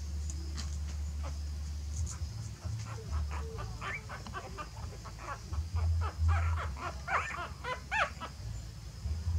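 Newborn puppies whimpering in short, high squeaks, most of them in the second half, with soft scuffling as the mother dog noses them on the mat. A low steady hum runs underneath.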